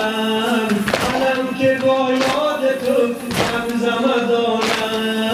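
A group of mourners beating their chests in unison (sineh-zani), with four sharp hand slaps about 1.2 seconds apart. Under them a man chants a noha in long drawn-out notes.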